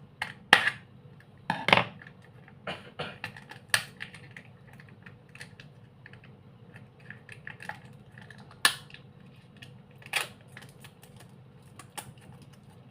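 Irregular close-up tapping and clicking from hands handling the slime and its packaging, with a handful of sharper, louder clicks among many small ones.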